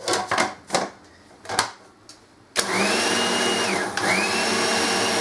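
A few knocks, then a Braun food processor's motor starts about two and a half seconds in, running loud with a rising whine as it blends chickpeas, tahini and oil into hummus. Near the end the whine drops briefly and picks up again.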